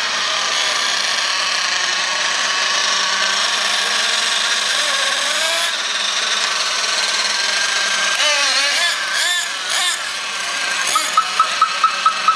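Small nitro (glow-fuel) engines of radio-controlled monster trucks running and revving, a high-pitched buzz that rises and falls in pitch about eight to ten seconds in. Near the end, a rapid run of about eight short high beeps.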